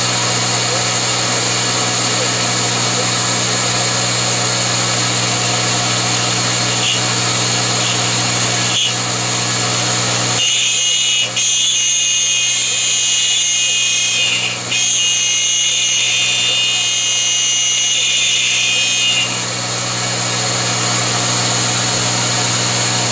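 Taig CR19 milling machine running steadily with its end mill cutting the part, a constant motor hum and cutting whine. About ten seconds in the cut changes to a thinner, higher whine for some eight seconds, then returns to the fuller sound.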